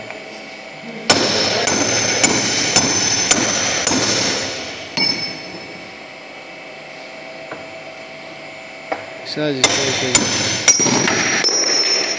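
Hammer blows on steel at a machine's shaft and bearing housing, each strike ringing metallically: about six sharp blows roughly half a second apart, a pause of several seconds, then four more near the end. The blows are knocking the shaft parts loose to take the chain drive apart.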